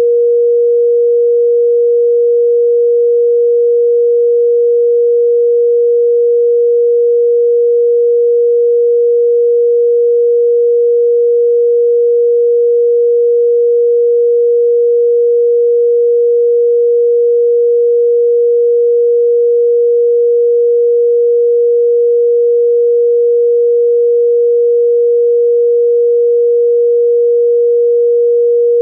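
West German telephone dial tone A: one continuous pure tone of about 475 Hz with no cadence, the exchange's signal that it is ready to receive the number.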